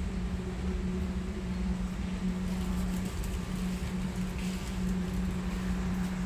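Steady low mechanical hum with a low rumble beneath it: the background machinery drone of a large warehouse store.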